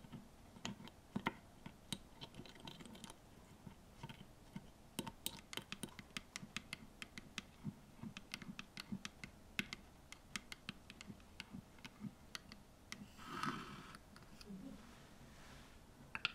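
A tiny metal spoon stirring a creamy mixture in a small glass bowl, clicking and tapping against the glass in an irregular run of light clinks. A brief rustling scrape comes near the end.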